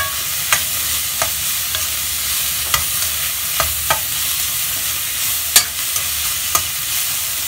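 Winged beans being stir-fried in a wok: steady sizzling, with irregular clinks and scrapes of the spatula against the pan, the loudest clink about five and a half seconds in.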